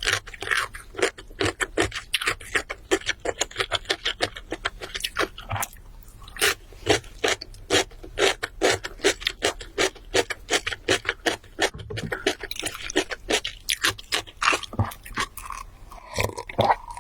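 Close-miked chewing of crunchy food, a quick run of crisp crunches several times a second.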